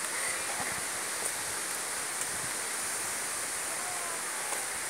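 Steady rushing of flowing water, a continuous even hiss.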